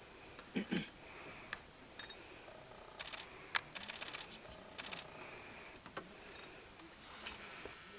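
Rapid mechanical clicking in short runs, about ten clicks a second, with separate single clicks before and after.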